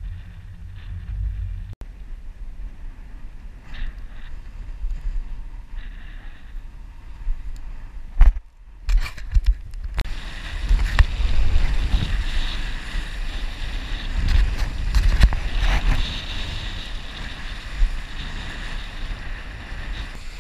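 Wind rushing over a camera microphone, low and gusty at first. About halfway through it becomes a louder, steady rush of wind and water as a kitesurfer rides across shallow water.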